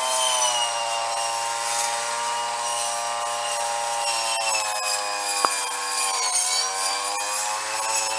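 Snapper commercial gas weed eater's two-stroke engine running at high speed with a dull circular saw blade cutting brush; the pitch dips briefly under load about six seconds in, then recovers. A few sharp ticks sound near the middle.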